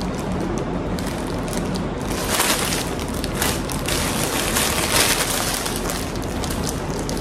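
Clear plastic packaging crinkling and rustling as bagged clothes are handled, in an irregular crackle.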